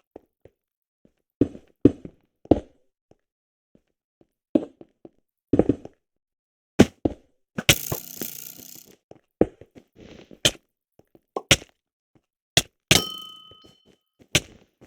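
Irregular knocks and thuds, about a dozen, spaced unevenly. About eight seconds in there is a stretch of rustling, and a knock near the end rings on briefly with a clear tone.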